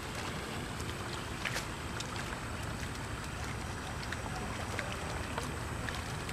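Open-air field ambience dominated by wind rumbling on the microphone, with a few faint scattered clicks.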